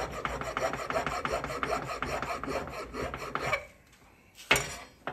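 A flat hand file scraping across the face of a soft cast lead sample in quick, even back-and-forth strokes, filing it smooth. The filing stops about three and a half seconds in, and a single sharp knock follows about a second later.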